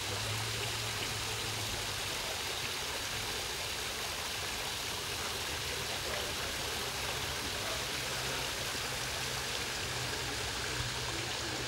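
Steady rush of running water, with a faint low hum underneath.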